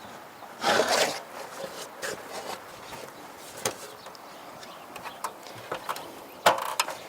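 Hand work on timber: a brief scrape about a second in, then scattered light knocks and clicks, with a sharper knock near the end.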